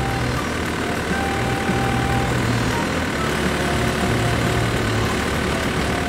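Heavy vehicle engine idling steadily.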